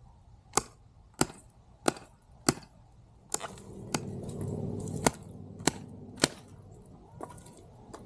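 A SwissTech hatchet chopping dry, dead firewood: about eight sharp wooden strikes, a quick run of four in the first three seconds and then more spaced blows. A steadier noise lies under the strikes from about three to six seconds in.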